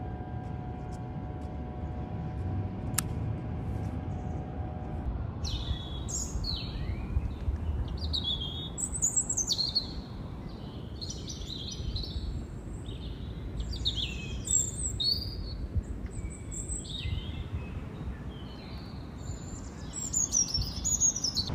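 Small birds chirping, a string of quick falling calls that begins about five seconds in, over a low rumbling noise. Before the birds start, a steady hum of several pitches sounds and then stops.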